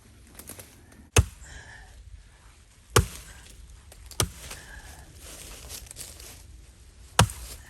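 Four heavy single strikes of an axe into wood, spaced one to three seconds apart, working to free a chainsaw bar pinched in a log.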